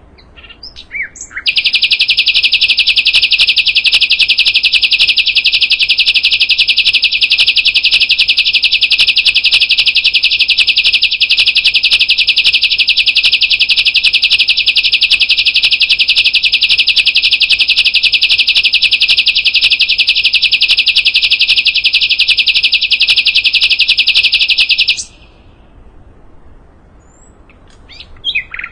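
Sikatan londo songbird singing one long, very fast, unbroken high trill that lasts over twenty seconds and stops abruptly. A few short chirps come before it, and more come near the end.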